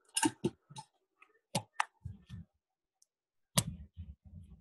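Irregular sharp clicks, with a few dull low knocks among them; the loudest click comes about three and a half seconds in.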